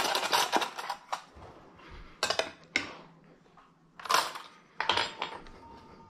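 A serving spoon clinking and scraping against the pan and dishware while gnocchi are served: a handful of short, sharp clatters, the loudest about four seconds in.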